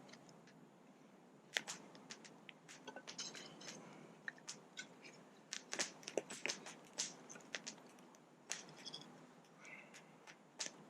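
Small kindling fire catching from birch bark tinder, with scattered sharp crackles and snaps at irregular intervals.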